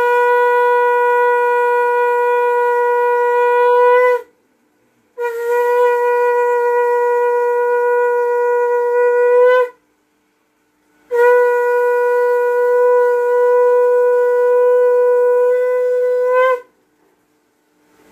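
Conch shell (shankha) blown in three long, steady blasts separated by short breaks. Each blast rises slightly in pitch just before it breaks off. This is the ritual conch blowing of a Bengali ceremony.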